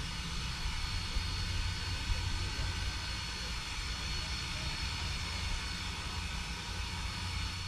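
Strasburg Railroad's steam locomotive No. 475, a 4-8-0, standing with steam up: a steady low rumble and hiss with a thin, steady high tone above.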